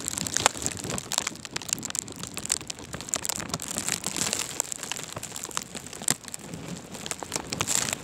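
Blizzard wind driving snow and ice pellets against the microphone: a dense, irregular crackle of small ticks over a steady rush of noise.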